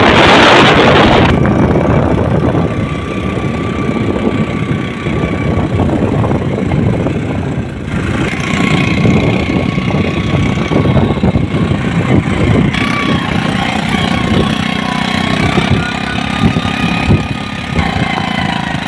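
A vehicle's engine running steadily while on the move, with a loud rush of wind over the microphone in the first second or so.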